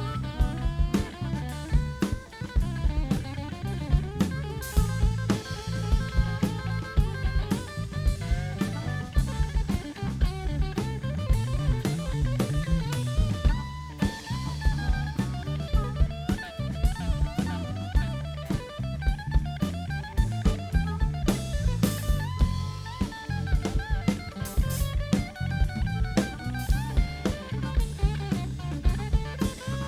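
Live blues-rock band playing an instrumental passage: a steady drum-kit beat with snare and bass drum under electric guitar and bass, with a bending guitar line.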